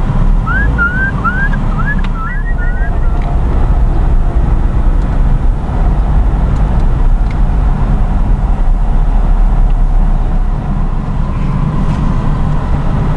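Car running, heard from inside the cabin: a steady low engine and road rumble. A run of quick, high chirps sounds in the first few seconds.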